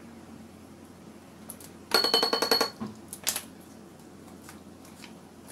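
A measuring spoon rattling quickly against a ceramic bowl with a ringing tone for under a second as turmeric is knocked off it, then a second short clatter and a single click near the end.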